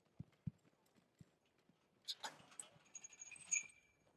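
Faint horse sounds: a few soft hoof thuds in the first second, then a short horse vocalisation with a thin high edge about two seconds in.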